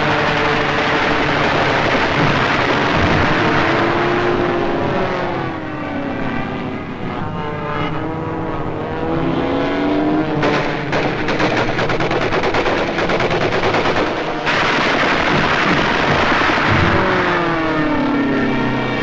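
Fighter plane engines running through dives and turns, their pitch sweeping up and down. Rapid machine-gun fire rattles through the middle.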